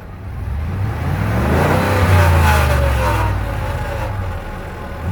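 A Ford F250 Tremor's 7.3-litre gas V8 is revved while stopped. It rises from about half a second in, holds high for a second or so, then falls back, and starts rising again near the end. The revving is an attempt to bring out a rattling noise the owner keeps hearing from the truck.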